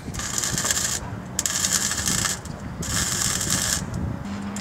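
Power tool cutting into a limousine's steel body, throwing sparks: three harsh, hissing cuts about a second long each, with short pauses between them.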